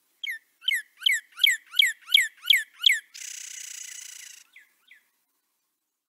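Northern cardinal singing: a run of about eight loud whistled notes, each sliding steeply down in pitch, then a fainter fast buzzy trill about three seconds in and two short closing notes.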